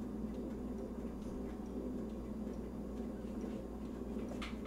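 Low steady hum of room and microphone noise, with faint scattered ticks and a couple of sharper clicks near the end.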